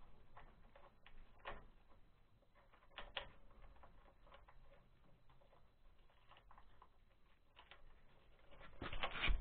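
Scattered light clicks and taps of hands working metal parts at the base of a Lifan engine as it is fitted to its mounting plate, with a louder clatter near the end.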